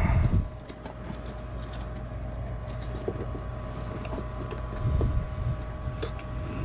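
Gas furnace draft inducer motor running with a steady hum, with scattered light clicks and knocks from tools and panel handling and a low thump near the start and again about five seconds in.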